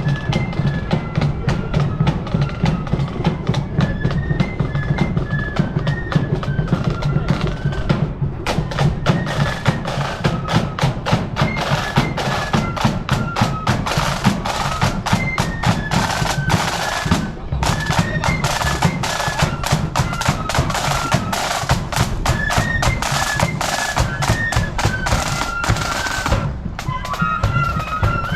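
Marching flute band playing: flutes carry a high melody over bass drum and snare drums. The snare strokes thicken into dense rolling from about eight seconds in and drop out near the end, leaving the flutes and low drum.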